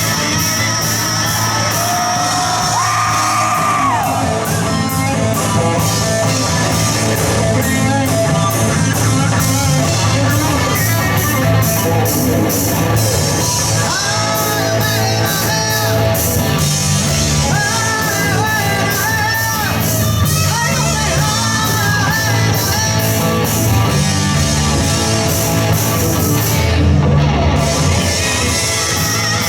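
Live rock band playing in a large hall: electric guitar, bass and drum kit with a singer, loud and continuous, with some yelling over the music.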